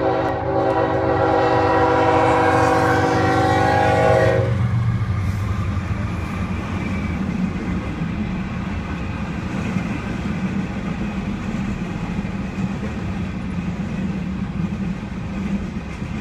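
Freight train horn sounding a long chord that cuts off about four seconds in, followed by the freight train rolling steadily past, its wheels and cars rumbling on the rails.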